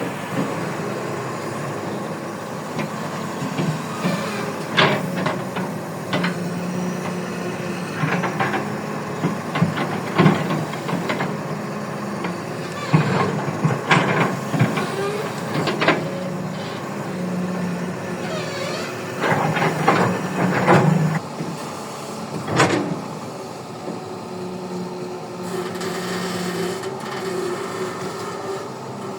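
Toy Kobelco excavator's small motor whirring in spurts as it works, with the bucket knocking, clicking and scraping in the soil.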